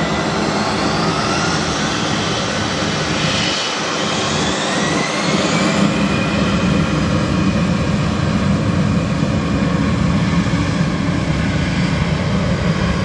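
Jet airliner engines running loud and steady, with a high turbine whine that rises in pitch a couple of times.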